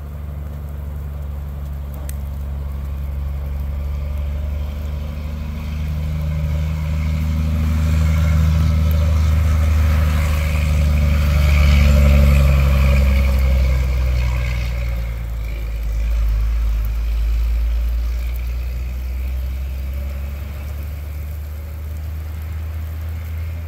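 Snowplow dump truck's engine running as it drives past, a deep steady hum that grows louder to a peak about halfway through and then slowly fades.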